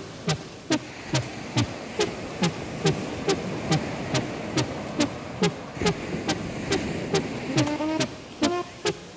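Background electronic music with a steady kick-drum beat, a little more than two beats a second. A melody line comes in near the end.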